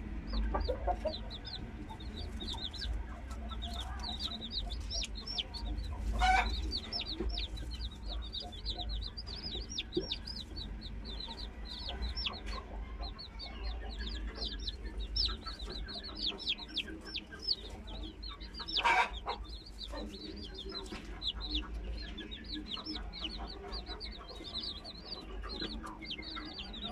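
Newly hatched chicks peeping continuously: a stream of short, high, falling chirps, several a second. Two louder, lower calls stand out, about six and nineteen seconds in.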